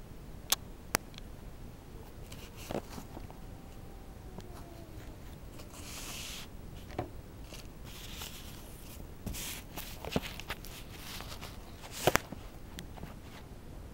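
Quiet room with scattered sharp clicks and soft rustling and shuffling from someone moving about while handling the camera, the loudest a double click near the end.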